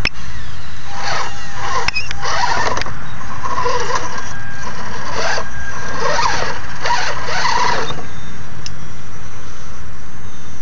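A radio-controlled rock crawler's electric winch whines in a series of short bursts as it pulls the truck up over a rock. Under it is a steady low rumble.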